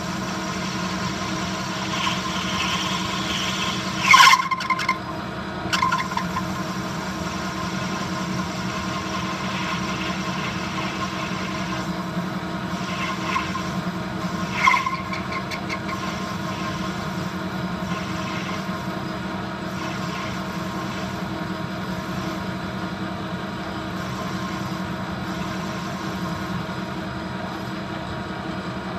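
Metal lathe running steadily with a constant hum while a carbide insert tool cuts a groove into a spinning brass bar. The cut gives three brief, louder squeals about four, six and fifteen seconds in.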